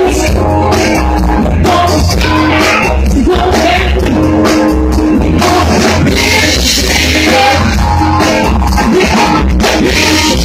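Live band playing loud, steady music: keyboards, drums and a bass line, with a voice singing.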